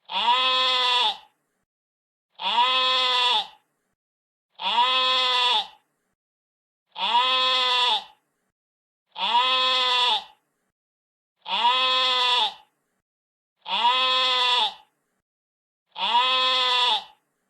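A sheep bleating: the same single call, each about a second long and rising then falling in pitch, repeated eight times at even spacing of a little over two seconds.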